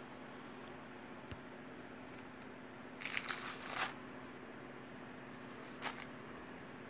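Pages of a handmade junk journal turned by hand. The paper rustles for about a second around three seconds in, with a shorter crinkle near six seconds, over a steady low hum.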